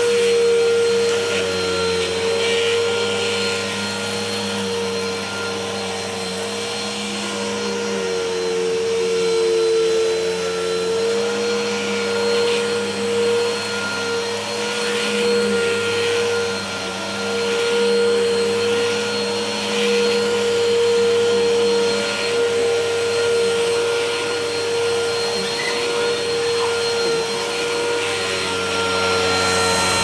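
Bissell Helix upright vacuum cleaner running on carpet with a steady motor hum and whine. Its loudness swells and eases as it is pushed back and forth.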